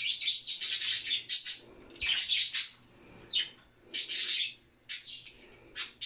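Young budgerigars chattering in quick bursts of high chirps: a long run through the first second, then shorter bursts about once a second.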